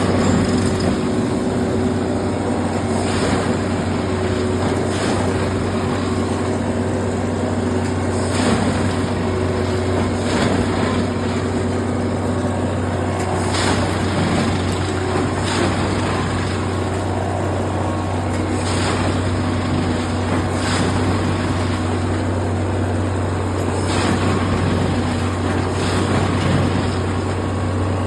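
Heavy track-maintenance machinery running: a steady low engine drone, with short sharp hissing or knocking sounds every two to three seconds.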